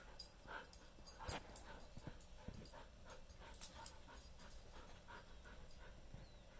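Two dogs jaw-wrestling in play, with soft dog noises and scattered quick clicks and snaps, the loudest about a second and a half in.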